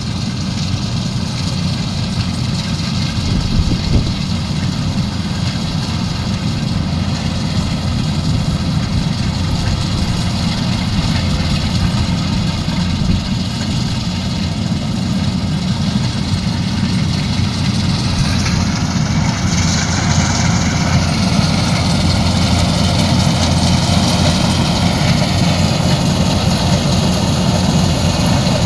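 Kubota combine harvester's diesel engine running steadily, its low drone even throughout, with a brief shift in its higher sound about two-thirds of the way through.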